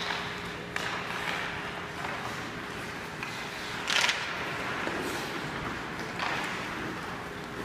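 Ice hockey game in an arena: skates scraping the ice and sticks and puck knocking, with a sharp crack about four seconds in.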